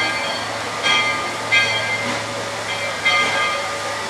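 Virginia & Truckee No. 25 steam locomotive approaching slowly, its bell ringing about once a second over a steady low hum from the engine.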